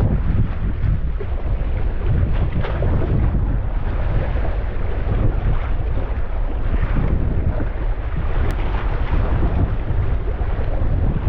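Strong wind buffeting an action camera's microphone as a steady low rumble, with waves and water washing around a sea kayak underneath.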